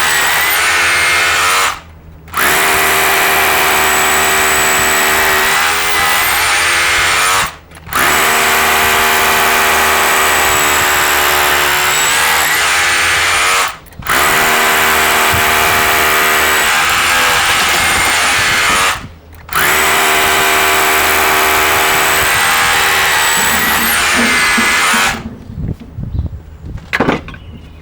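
Power drill boring into the mortar joints around a brick (stitch drilling) to take the mortar out. It runs in long spells broken by four short pauses, stops about 25 seconds in, and a few quieter knocks follow.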